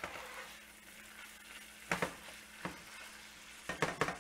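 Browned ground beef sizzling quietly in a skillet while a silicone spatula scrapes and knocks against the pan: single sharp knocks about two seconds in and a little later, then a quick cluster of knocks near the end.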